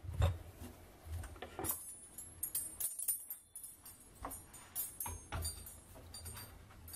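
Metal spoons and forks jangling and clinking against their hanging wire stand as it is lifted and carried, in several separate jingles with light knocks.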